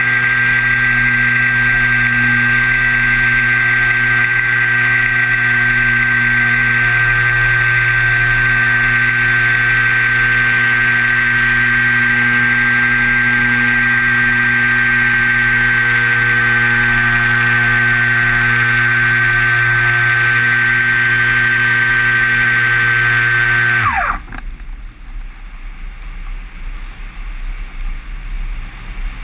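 Kyosho Stratus 2000 electric RC glider's motor and propeller running at a steady speed, a loud drone with a high whine, heard from a camera on the fuselage. About 24 seconds in the motor is cut and spins down quickly, the folding propeller stops, and only wind rushing past the airframe remains.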